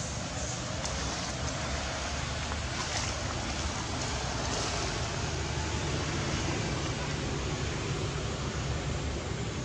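Steady outdoor background noise: an even hiss with a fluttering low rumble underneath, with no animal calls standing out.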